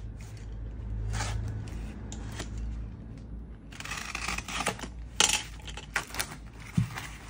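Brown paper and tape wrapping on a baseball bat being slit with a utility knife and pulled open: intermittent scraping and rustling of the paper. There is a sharp clack about five seconds in as the knife is put down on the counter.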